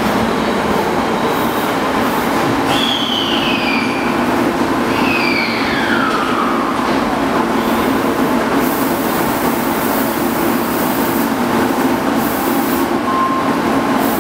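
Kita-Osaka Kyuko 8000-series subway train coming to a stop at an underground platform, with two falling whines a few seconds in as it slows, then standing with a steady equipment hum.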